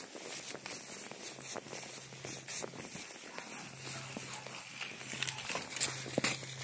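Footsteps crunching through dry fallen leaves and grass while a measuring wheel rolls along, giving irregular crackles and clicks. A faint low hum comes and goes.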